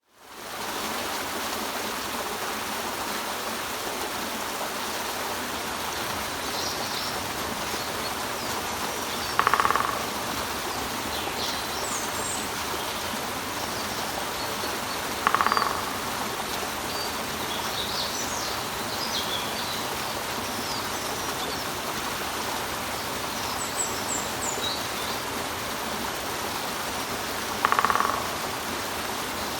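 Water running steadily over a rock, with small birds chirping now and then. A woodpecker sounds three times in short, loud bursts: about ten seconds in, again at fifteen, and near the end.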